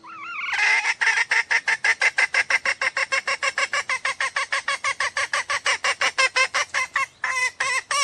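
Junglefowl lure call: a fast, even run of harsh clucking notes, about seven a second, for some six seconds, then a brief break and a few more notes near the end.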